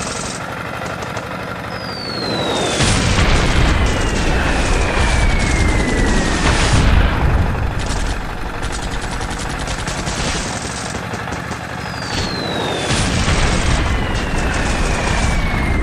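Dubbed battle sound effects: rapid gunfire throughout, with two long falling whistles about ten seconds apart, each joined by heavy rumbling blasts.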